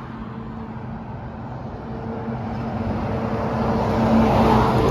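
Semi truck's engine running with road noise, a steady low drone that grows louder as the truck approaches.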